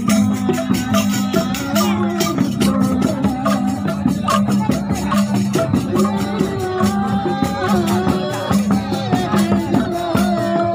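Group of bamboo angklung shaken in a fast, continuous rattle, over a steady low note and a wavering melody line.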